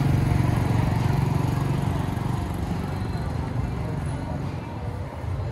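Motor scooter engine passing close by and fading away over the first couple of seconds, leaving general street noise.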